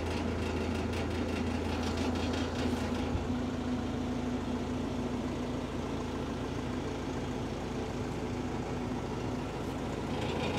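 A steady low engine hum, like an engine idling, with some crackling noise in the first three seconds.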